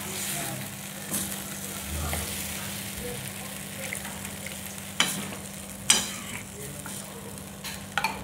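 Gravy sizzling and bubbling in a steel kadai on a gas stove as water is poured in and a steel ladle stirs it. A few sharp clinks of the ladle against the pan come through, the loudest about five and six seconds in.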